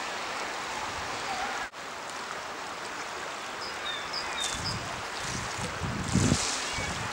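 River water flowing steadily, a constant even rush. A few faint, short bird chirps come in midway, and wind buffets the microphone in the last few seconds, loudest about six seconds in.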